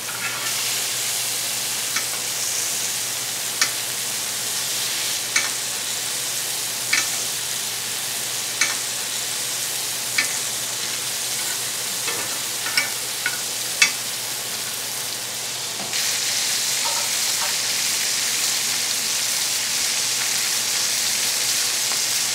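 Steaks sizzling in melted butter in a cast iron skillet. A basting spoon clinks against the pan about every second and a half as butter is spooned over the meat. The sizzle grows louder about two-thirds of the way through.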